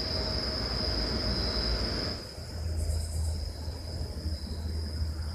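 Night insects, crickets, trilling steadily in one high continuous tone, with two brief higher buzzes. A rushing background noise stops about two seconds in.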